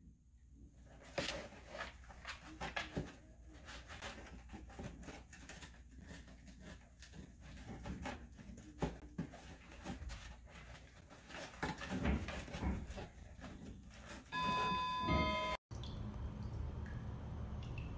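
Scattered rustles, scratches and taps of torn cardboard as a dachshund puppy shifts about and noses inside a cardboard box. Near the end a brief electronic beep of several steady tones lasts about a second, then a steady low rushing sound follows.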